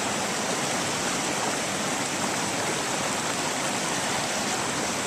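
Steady rush of river water running through a salmon pool and rapids, an even, unbroken sound.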